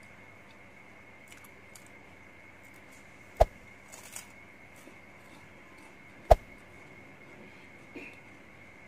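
Two sharp mouse-click sound effects from a like-and-subscribe button animation, about three seconds apart, with a few faint crackles around four seconds in, over a faint steady high whine.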